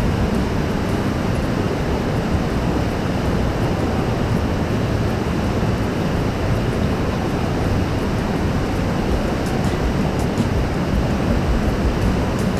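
Steady rush of water, an even, unbroken noise with no pauses or swells.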